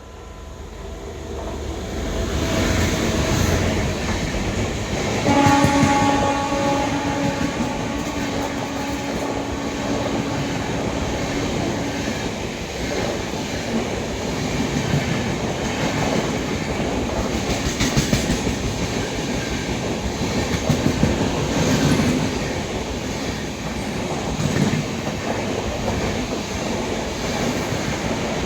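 An express train hauled by a WAP-7 electric locomotive passing at speed. A horn blast starts about five seconds in and is held for roughly seven seconds, then the coaches rush past with wheels clattering over the rail joints.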